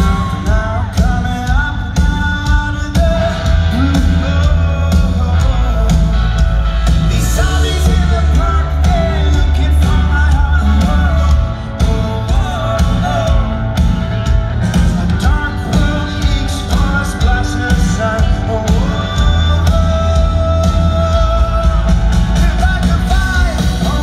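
Live rock band playing through a large amphitheater sound system, with a male lead singer over drums, bass and electric guitars, heard from within the audience. The music drops out briefly about eleven seconds in, then comes back in full.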